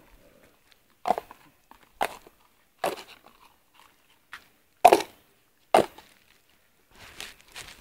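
Sharp crunches of dry food, five loud ones roughly a second apart, with softer rustling near the end.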